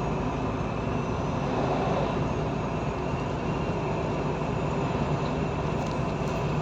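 Truck's diesel engine and tyre noise, heard from inside the cab while driving on the highway: a steady, even running sound.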